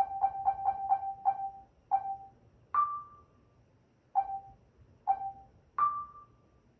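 Electronic menu navigation sounds: a run of short pitched blips, several a second, then a longer, higher tone, followed by two more blips and another higher tone.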